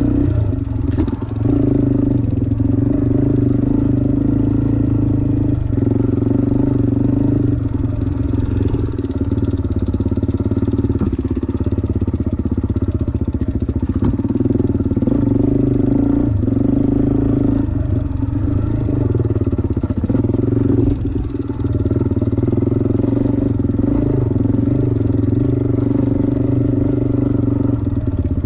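Dirt bike engine running under throttle while riding, its pitch rising and falling every few seconds with throttle and gear changes.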